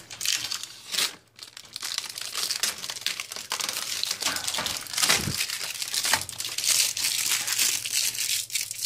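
Plastic packing bags and taped cardboard packing being pulled out from inside a metal PC case, rustling and crackling in a continuous run of small crackles and scrapes.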